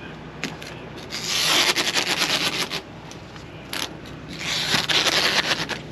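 Masking tape being pulled off the roll and laid along a boat hull to mark the waterline: a rapid crackling rip about a second in, a short one, then another long rip near the end.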